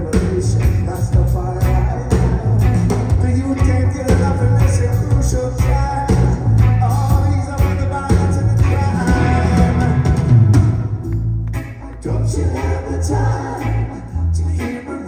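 Live blues-rock band playing loud through a PA: electric guitar, electric bass and drum kit, with a male lead vocal over a heavy bass line and steady drum beat. The music drops back briefly about two thirds of the way in.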